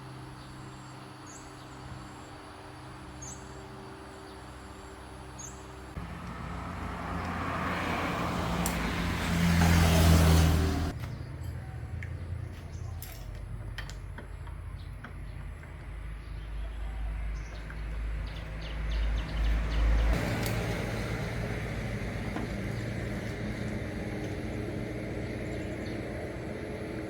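An engine running, rising to a loud, noisy peak about ten seconds in, then dropping back to a lower rumble and swelling again near the end; small bird chirps sound early on.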